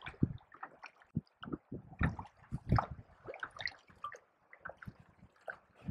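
Water dripping and gurgling around a small rowboat, with light, irregular little knocks and splashes.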